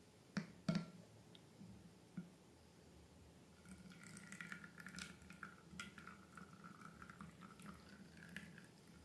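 Slime and rubber balloons being handled: two sharp clicks at the start, then a wavering squeak with wet crackling and squishing for several seconds.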